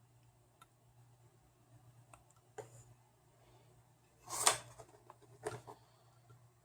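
Faint ticks and scrapes of a razor blade picking plastic coating off an LED strip's solder pads, over a steady low hum. A short, louder rush of noise comes a little over four seconds in, and a smaller one about a second later.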